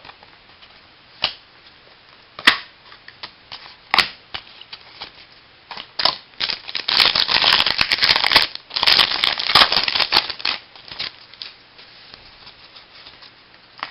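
Trading cards being handled: a few sharp clicks, then dense rustling and crinkling from about six seconds in that lasts roughly four seconds.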